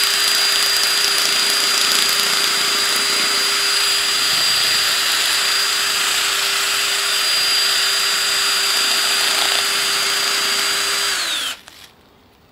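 Cordless drill spinning a dinner fork against a fish's side to scrape off its scales, running at a steady speed with a constant whine. About eleven seconds in it is released and spins down, its pitch falling as it stops.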